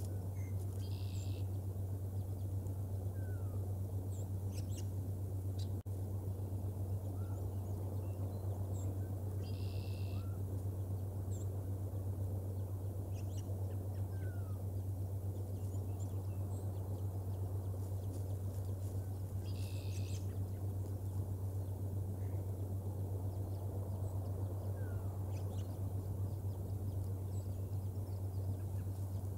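Outdoor ambience: a small songbird's high trill, about a second long, repeats roughly every ten seconds, with faint short chirps between. Under it runs a steady low hum and a constant wash of wind-like noise.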